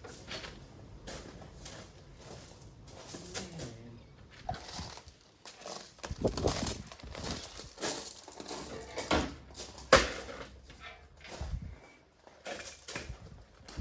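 Irregular clinks, clanks and knocks of metal tools and parts being handled during a tractor repair, with one sharp knock about ten seconds in.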